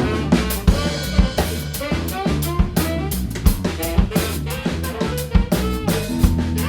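Rock band playing an instrumental passage: a drum kit with kick, snare and rimshot hits over bass and guitar.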